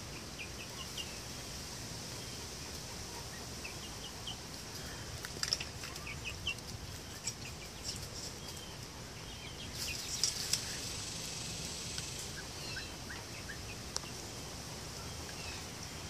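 Chickens giving short, soft, high chirping calls while they drink and peck at a metal bowl of ice water. Sharp clicks and taps at the bowl come in two clusters, about five seconds in and again about ten seconds in.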